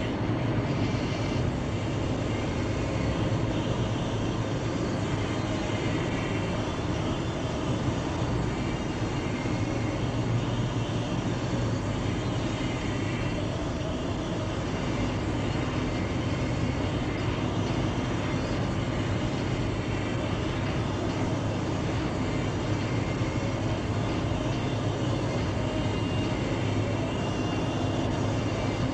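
A car being driven at a steady speed: continuous road and engine noise with a low hum and no changes in pace.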